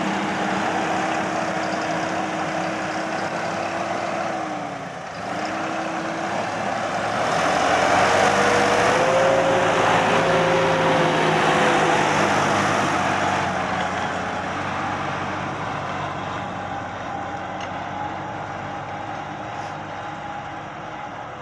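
Deutz-Fahr 5070 D tractor's diesel engine running under load while pulling a plough. The engine note dips briefly about five seconds in, grows louder for a few seconds, then slowly fades.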